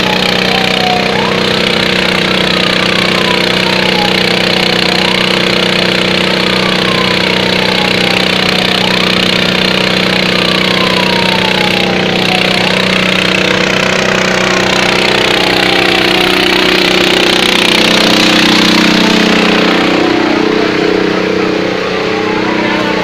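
A large engine running steadily, as from a fire engine or its pump, with a siren wailing over it in slow falling sweeps that jump back up about every four seconds; the sweeps fade out near the end.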